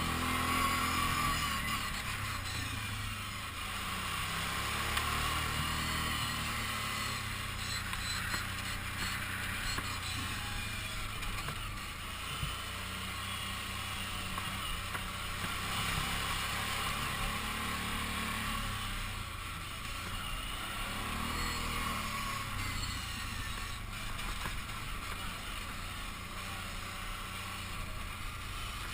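Kawasaki Brute Force 750 ATV's V-twin engine running steadily on a trail ride, its pitch rising and falling several times as the throttle is opened and eased off.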